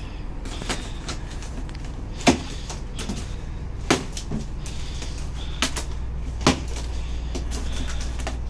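A shipping box being opened and unpacked: about six sharp knocks and taps of the box and its contents being handled, the loudest a little over two seconds in, over a steady low hum.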